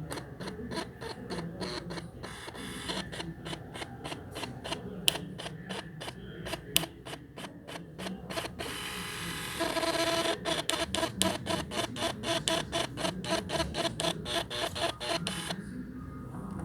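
Small printer running, a fast even clicking of its paper-feed mechanism as it prints out the battery test result; it gets louder and more whirring about two thirds of the way through.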